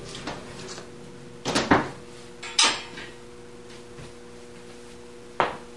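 Knocks and clatter from a power cord and its plug being handled and dropped to the floor: two close together about a second and a half in, a sharper one near three seconds, and one more near the end. A steady hum runs underneath.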